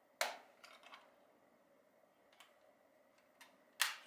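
Handling noise from the white plastic casing of a Retekess TR606 cassette player radio being turned over in the hands: a few sharp clicks and knocks, the loudest just after the start and another near the end.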